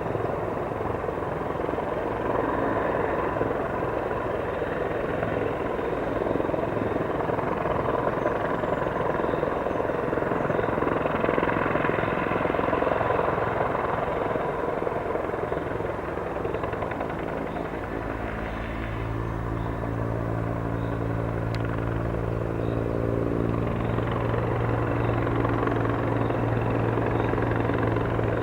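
Transport helicopter running steadily, its rotor and turbine noise filling the air. From about two-thirds of the way in, a stronger low, steady hum comes in beneath it.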